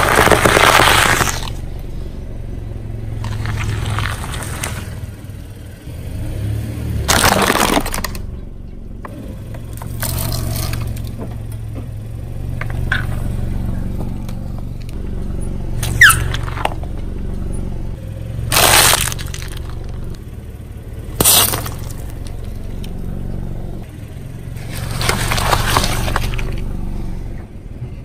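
A car tyre rolling over and crushing one object after another, about eight crunching, cracking and squashing bursts a few seconds apart, over the car's low steady engine hum. The objects include a plastic sauce bottle bursting and, near the end, watermelon slices being squashed. A single short rising squeak comes about halfway through.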